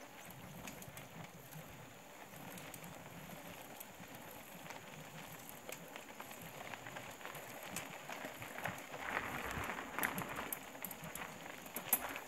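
Mountain bike tyres rolling on a dirt road, with many small clicks and rattles from the bike and loose grit. It gets louder from about eight seconds in.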